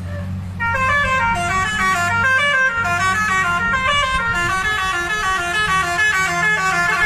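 Bus telolet horn of the basuri type playing a fast, melodic run of stepped notes, starting under a second in, over a steady low engine hum.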